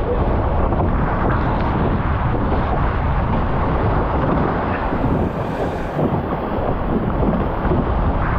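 Strong wind buffeting the microphone, with water rushing and spraying past the hulls of a Formula 18 catamaran sailing fast through chop; a steady, heavy noise throughout.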